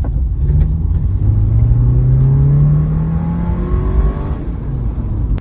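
Car engine at a low, rough idle with a whistling noise, which the owner puts down to air being drawn in through a torn intake boot (a vacuum leak). A tone slowly rises in pitch from about half a second in until about four seconds in, then fades.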